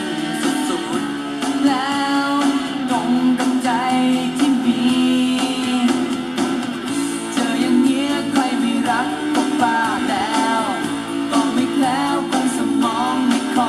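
A pop song, a sung voice over guitar, playing through an Aiwa CDS-A190 portable stereo's speakers.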